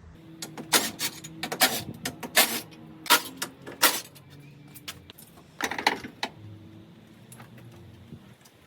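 Metallic clinking and rattling: a quick run of sharp clanks in the first four seconds and another cluster about six seconds in.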